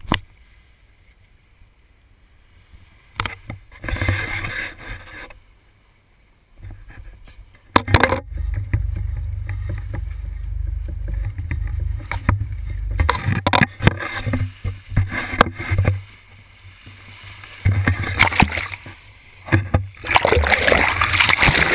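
Wind buffeting a GoPro's microphone and knocks from handling the camera on a boat hook, with a steady low rumble in the middle. Near the end, as the camera is lowered to the sea surface beside the moving hull, loud rushing, splashing water takes over.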